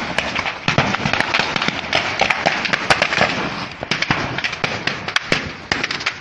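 Gunshots: many sharp cracks and pops going off in quick, irregular succession.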